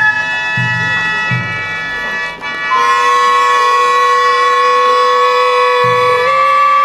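Japanese festival hayashi music: a high flute holds long, piercing notes and steps up in pitch about three seconds in and again near the end, over a few low drum strokes near the start and near the end.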